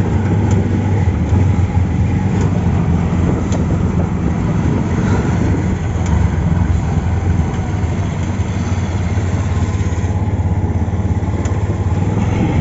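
Auto-rickshaw engine running steadily as it drives along, heard from inside the passenger compartment.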